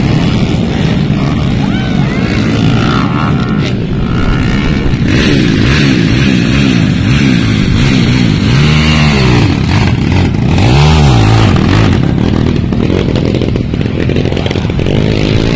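Several motocross dirt bike engines racing on the track, revving up and down as the riders work the throttle. About midway, two loud revs rise and fall in pitch.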